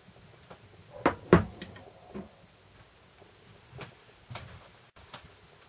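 Steel transfer-box selector shaft assembly, with its coil spring, being set down on a wooden workbench: two sharp knocks about a second in, the second the loudest, then a few lighter knocks.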